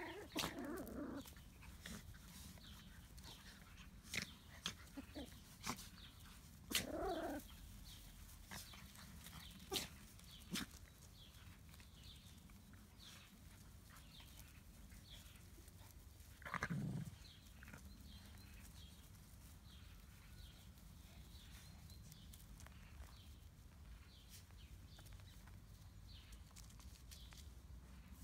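Miniature schnauzer puppies and dogs at play, giving a few short yips and growls: one near the start, one about seven seconds in, and a lower one around seventeen seconds. Long quiet stretches lie between, with scattered light clicks and rustles.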